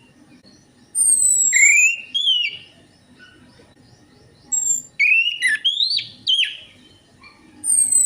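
Orange-headed thrush song: three bursts of varied, loud whistled phrases, with high falling notes and quick rising and falling sweeps, starting about a second in, again around five seconds, and near the end.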